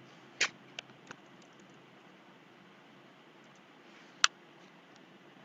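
A few sharp clicks at a computer: three close together about half a second in, then a single louder click near four seconds, over a faint steady hiss.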